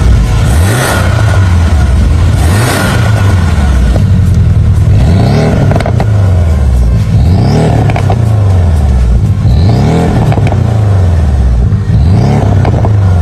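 Porsche 718 Cayman GTS 2.5-litre turbocharged flat-four revved in about six quick blips at standstill through an A Performance valved cat-back exhaust. The first couple come with the exhaust valves closed (quiet factory mode). The rest come with the valves open, with pops as the revs fall.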